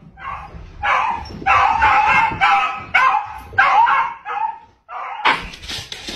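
Dog barking and yipping in play, a run of short high barks about two a second.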